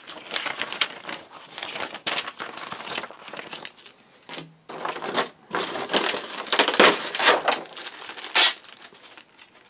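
Paper instruction manual rustling as its pages are leafed through, then louder crinkling of a plastic zip bag being picked up and handled in the second half.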